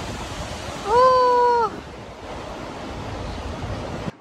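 Outdoor wind buffeting the microphone as a steady rushing noise. About a second in comes one loud pitched note of under a second that swoops up, holds and drops away.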